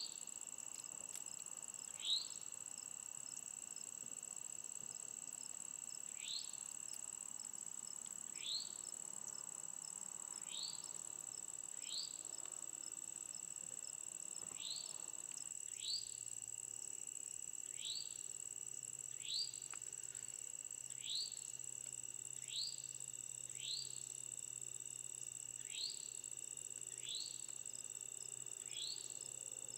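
Evening insects trilling in a steady, unbroken high drone, while a bird gives a short downward-slurred call about every one to two seconds.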